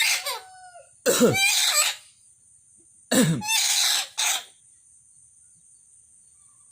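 Pet lory (parrot) imitating a choking cough: two hoarse coughing bouts, about a second and about three seconds in, each opening with a falling note, the second followed by one short extra cough.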